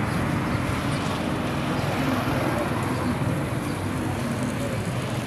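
Roadside street ambience: a steady rumble of traffic with faint voices underneath.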